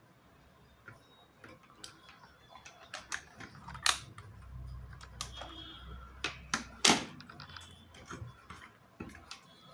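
Handling clicks and knocks as a multimeter's rotary switch is turned and its test leads and the opened LED bulb are picked up and set down, the loudest knocks about 4 and 7 seconds in, with a low rumble between them.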